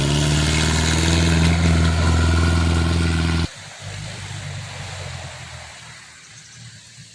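Old Mitsubishi Willys-type jeep engine held at high revs with a steady drone, then cutting off suddenly about three and a half seconds in to a quieter, lower engine rumble that fades away.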